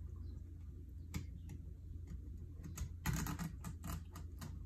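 Kitchen knife cutting along a trout's spine on a plastic cutting board: light, scattered clicks, one about a second in, then a quick run of them about three seconds in.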